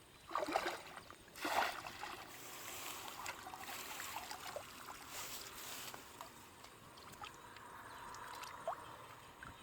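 Water splashing twice in quick succession, then continued sloshing and trickling.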